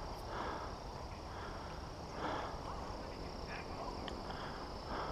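Steady high-pitched insect drone, with soft rustling about once a second.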